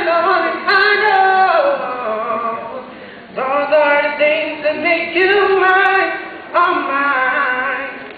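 A young man singing solo into a microphone, in long held phrases with wavering pitch and short breaks between them.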